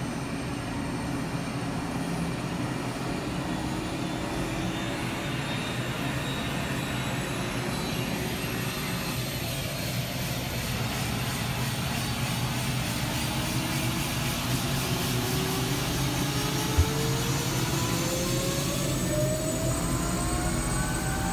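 Helicopter running on the ground, heard from inside the cabin: a steady engine and rotor drone, with a whine that climbs in pitch over the last several seconds.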